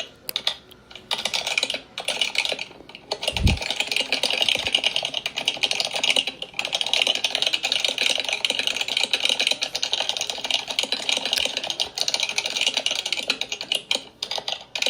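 Fast typing on a computer keyboard, a dense clatter of key clicks broken by a few brief pauses, with one low thump about three and a half seconds in.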